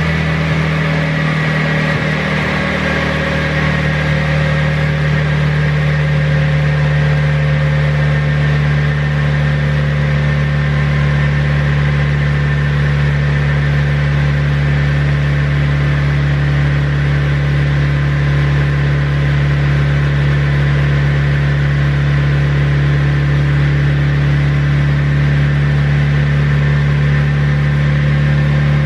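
Turbocharged Honda B18B1 non-VTEC four-cylinder in a Civic hatchback idling steadily, with an even, unchanging tone and no revving.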